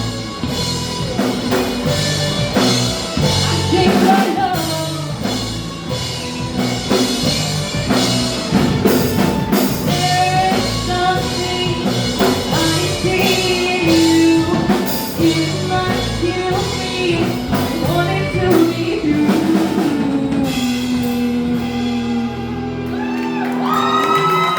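Rock band playing live with a singer: drum kit, guitars and vocals. Near the end the drums drop away and long held notes ring out.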